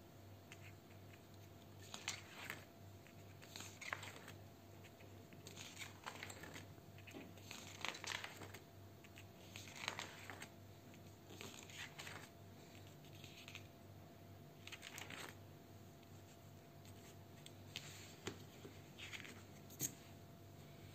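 Thick card pages of a spiral-bound comic book being turned by hand, each turn a short papery swish or scrape, about every two seconds, over a low steady hum.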